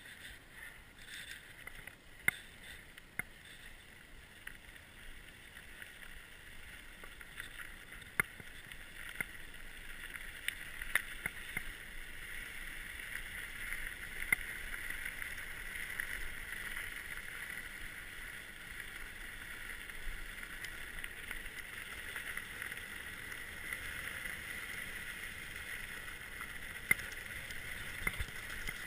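Orbea Occam mountain bike rolling over a dirt and gravel track: a steady rolling noise of tyres and bike, with sharp knocks here and there from stones and the bike rattling. The noise slowly grows louder.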